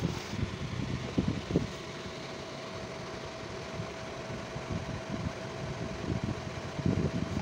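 Steady whirring of a running fan, with a faint steady tone underneath. Low rumbling bumps come about a second and a half in and again near the end.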